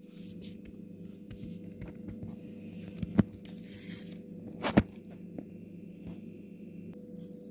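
Steady low background hum, with two sharp knocks about a second and a half apart near the middle.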